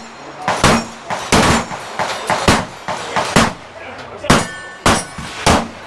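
Pistol shots fired one after another, about eight in six seconds at an uneven pace, with a metallic clang ringing after some of them.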